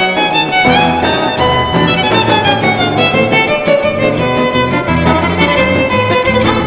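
Violin playing a csárdás in A minor, a quick melody with fast-changing notes and slides, over a rhythmic accompaniment of pulsing low notes.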